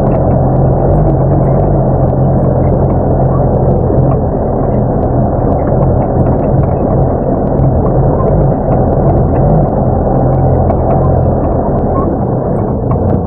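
A truck's engine running steadily, heard from inside the cab, with light knocks and rattles as the truck drives over a rutted dirt track.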